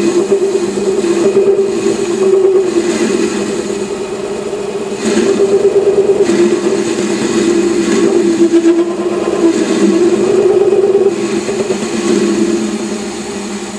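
Lathe parting tool cutting a groove into spinning bar stock, giving a loud, wavering, pitched chatter over the running lathe. It eases after about eleven seconds.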